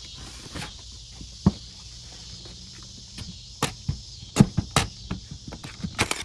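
Irregular sharp knocks and clicks as vinyl garage door weatherstripping is lined up against the door frame and fastened, with a cluster of knocks in the second half, over a steady high hiss.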